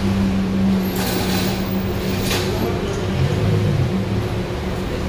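Lamborghini Huracan Performante's V10 engine running at low revs as the car creeps forward at walking pace, with a slight swell in the engine note about three and a half seconds in.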